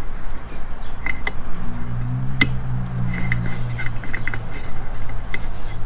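Light metallic clicks and clinks of hand tools against metal parts, one sharper click about two and a half seconds in, over a steady low hum; a low drone sounds for a couple of seconds in the middle.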